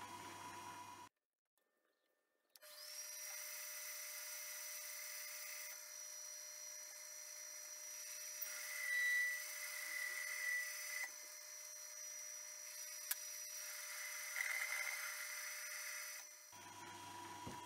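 Small hobby metal lathe running with a steady motor whine as a carbide tool turns down the end of a 12 mm stainless steel bar, with short squeals from the cut near the middle. The sound drops out for about a second and a half near the start.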